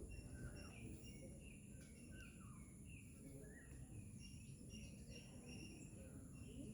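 Faint outdoor ambience: small birds chirping in short repeated notes and brief falling calls, over two steady high-pitched tones and a low rumble.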